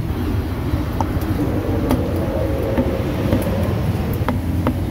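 Steady hum of street traffic, with a few sharp knocks of a cleaver on a wooden chopping block: about one and two seconds in, and twice near the end.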